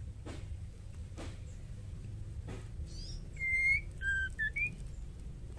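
Female white-rumped shama giving a few clear whistled notes about halfway through: one held note, then three short notes stepping up in pitch. Under them run a steady low rumble and faint clicks about once a second.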